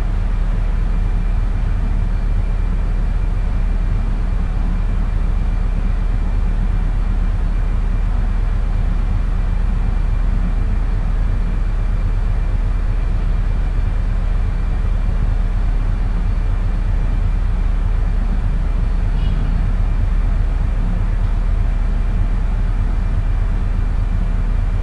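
Steady low hum and rumble with hiss and a faint high whine, unchanging throughout: background noise on the recording's microphone.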